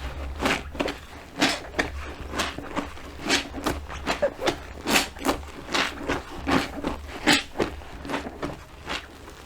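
Wet sponge squeezed and squished by hand, giving a quick, irregular run of short squelches.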